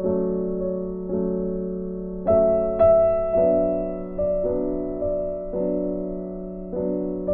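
Background music: soft piano chords, struck about once a second and left to ring out.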